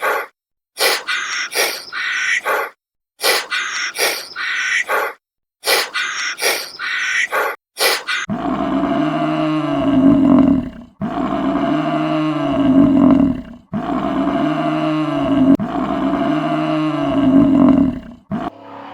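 Farm animal calls repeated like a loop: four short calls with brief gaps between them, then from about the middle a lower, drawn-out call that rises and falls, heard four times in a row.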